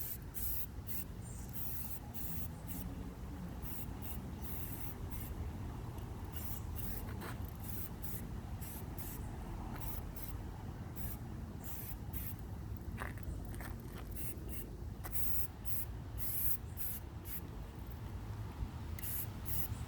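Aerosol spray-paint can being sprayed in many short, irregular bursts of hiss, each lasting about a second or less, over a steady low rumble.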